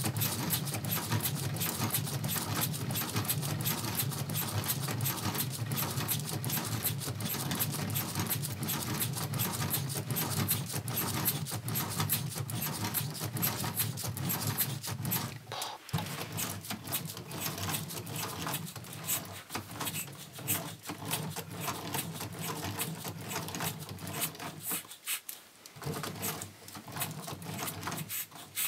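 LEGO Technic pneumatic engine running on its own air supply: a fast, steady plastic clatter from its piston, valve and gears. A low hum underneath fades out about halfway through.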